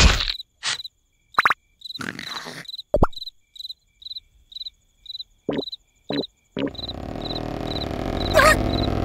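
Cartoon night ambience: a cricket chirping about twice a second, mixed with a few brief squeaky cartoon sound effects and a single thud from the animated larvae settling down. About two-thirds of the way through, a steady low rumbling noise comes in under the chirps.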